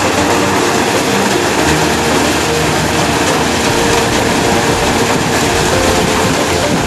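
Steady, loud mechanical noise with a constant drone, like an engine-driven machine running without a break.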